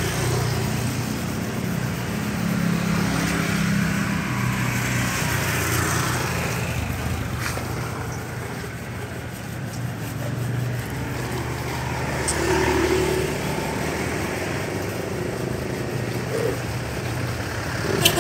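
A motor vehicle engine running steadily, a low even hum, under the scratchy rubbing of coarse 100-grit sandpaper worked by hand over body filler on a car door.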